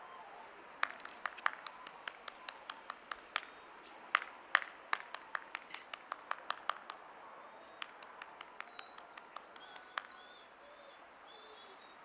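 Quick, sharp clicks, about three or four a second, made by a person to call a puppy. They come in runs and thin out over the last few seconds.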